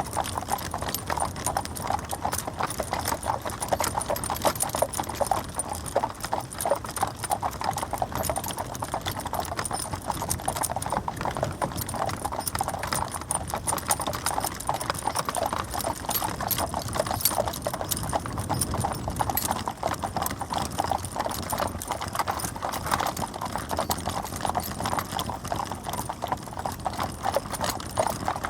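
Four-horse stagecoach on the move: a dense, continuous clip-clop of hooves.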